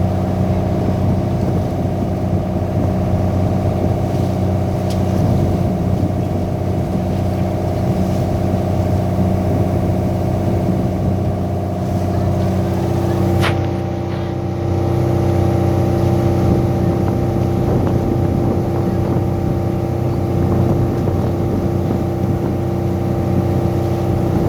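Boat engine running steadily, a constant hum heard from on board. About halfway through there is a sharp click and the engine note shifts slightly.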